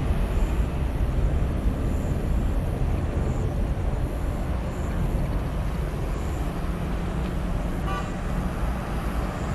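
Steady low rumble of jet engines running across the airfield, with a car coming close near the end and a brief beep about eight seconds in.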